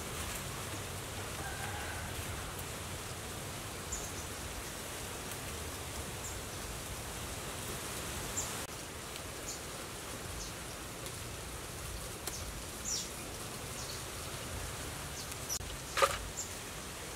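Steady outdoor background noise with faint, scattered clicks of leaves and stems being snapped off by hand, and one sharper click near the end.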